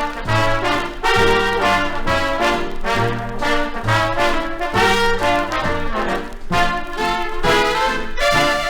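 Big-band swing instrumental: brass section with trombones and trumpets playing over a walking bass line.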